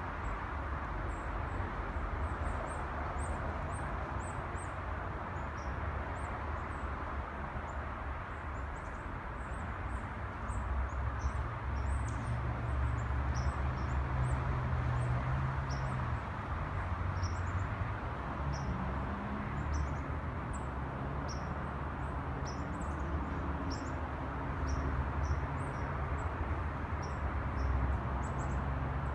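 Ambient city sound: a steady low rumble of distant traffic that swells about ten seconds in, with birds chirping, many short high chirps, over it.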